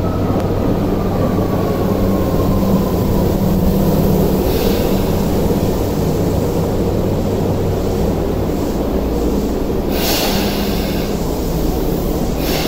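Subway train pulling in along the platform and slowing to a stop. A steady low hum runs throughout, with a faint whine falling in pitch over the first few seconds and short bursts of hiss about four and ten seconds in.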